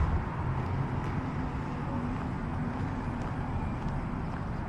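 Steady low rumble of road traffic in the open air.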